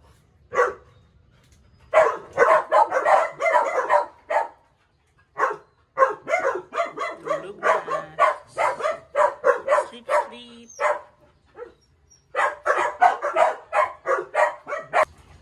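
Three-week-old Aspin puppies barking in quick runs of short, high-pitched barks, with brief pauses about five and twelve seconds in.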